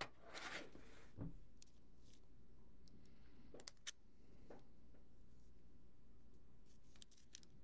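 Faint handling of a product box and its packaging: a brief rustle, a soft thump about a second in, then a few sharp clicks and taps spread out, with another rustle near the end.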